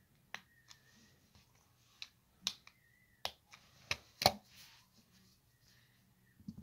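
Plastic LEGO bricks clicking as they are pressed together and knocked against a wooden tabletop: a string of sharp, irregular clicks, the loudest about four seconds in.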